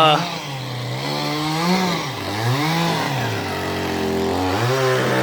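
Chainsaw engine revving up and down, its pitch rising and falling again and again, with the loudest, sharpest rev right at the start.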